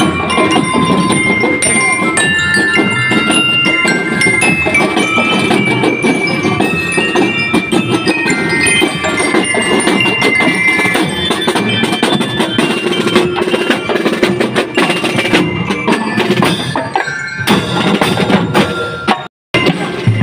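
Drum and lyre corps playing: bell lyres ring out a quick melody of metal-bar notes over steady snare drumming. The music breaks off in a brief dropout near the end.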